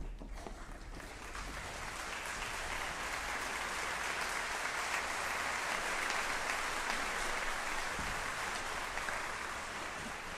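Audience applauding, swelling over the first couple of seconds, strongest in the middle and easing off near the end.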